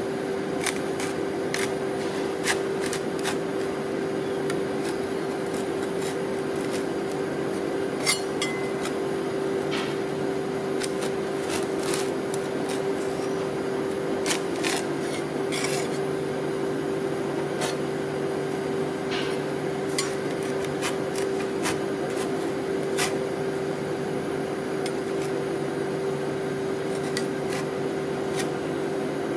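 Metal spatula scraping and knocking on the stainless steel cold plate of an ice cream roll machine as a frozen sheet of sticky rice ice cream is scraped up into rolls, with scattered sharp clicks. Under it runs the machine's steady hum, which deepens about halfway through.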